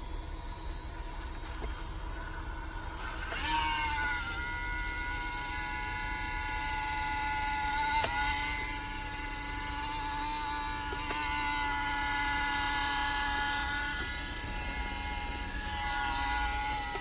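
A small vacuum cleaner, run from a car power inverter, starts about three seconds in. Its motor then runs with a steady high whine over a low rumble.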